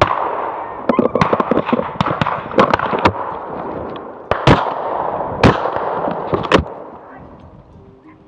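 Shotguns firing at driven pheasants: a scatter of near and distant shots, with three louder shots about a second apart in the second half, over a rushing noise that fades toward the end.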